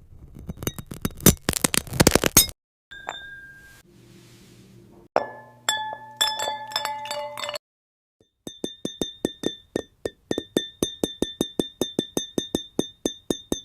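Glassy clinks and taps from AI-generated 'glass food' ASMR: a quick crackling run of clicks, a brief ringing ping, a few clinks that leave several ringing pitches hanging, then a long, even run of rapid taps, each ringing with the same bright tones.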